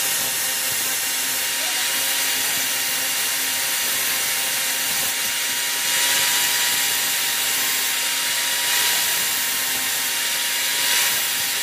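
Electric angle grinder running steadily with a constant whine, its abrasive disc grinding a small steel blade held against its edge.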